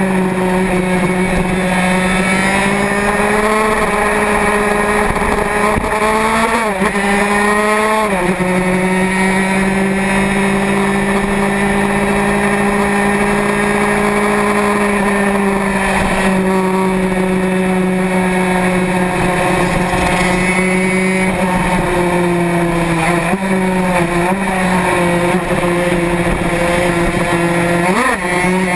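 Racing motorcycle engine heard from on board, held at steady high revs, with sharp brief dips and recoveries in pitch about seven and eight seconds in and again near the end.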